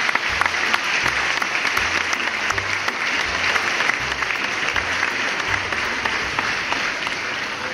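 Crowd applause, a dense, steady clapping, over a low regular beat.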